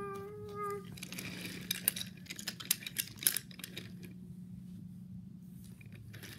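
A child humming a held note for under a second, then a scatter of light clicks and rattles for about three seconds, over a steady low hum.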